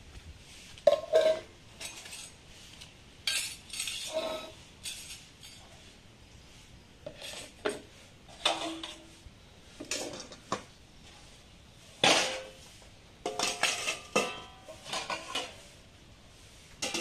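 Stainless steel bowls and a steel mug clanking against each other and against the ledge as they are set down and stacked, in a dozen or so separate clinks, several of them ringing briefly.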